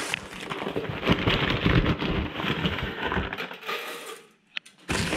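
Dry alder wood chips poured from a paper bag, rattling and pattering into the metal box of a hot smoker, with the bag rustling. The pattering dies away about three and a half seconds in, and there is one sharp click near the end.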